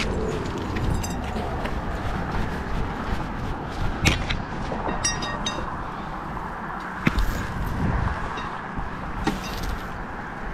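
Steady rumble of road traffic on a bridge, with a few brief knocks and rattles as a drop net and its rope are handled.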